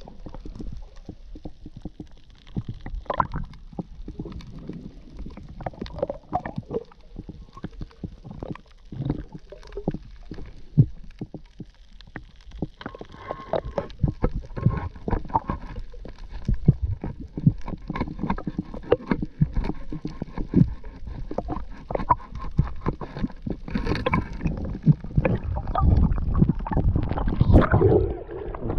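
Muffled underwater water noise picked up by an action camera while free-diving: gurgling and sloshing with a steady scatter of irregular clicks and knocks, growing busier and louder from about halfway through.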